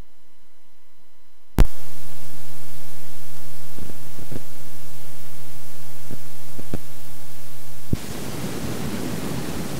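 Start of a home-dubbed cassette tape, before the music: faint tape hiss, then a click about a second and a half in brings in a loud, steady electrical hum with a few scattered clicks. Near the end the hum cuts off with another click, leaving hiss.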